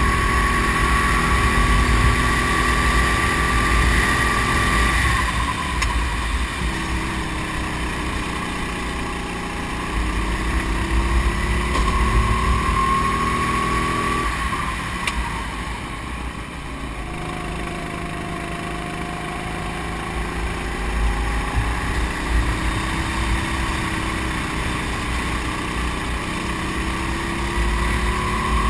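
Racing kart engine heard onboard at speed. Its pitch climbs under acceleration, drops sharply about five seconds in and again around the middle as it slows, then climbs again near the end.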